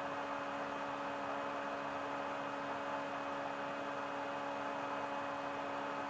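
Two heat-powered thermoelectric stove fans running on hot sand: a steady whir of spinning blades and small motors, with a faint steady hum.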